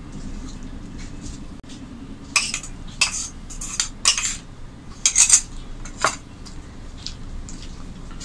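A steel spoon scrapes and clinks against a small ceramic bowl while potato fry is served out of it onto a plate of rice. It makes a string of sharp clinks and scrapes, busiest between about two and six seconds in.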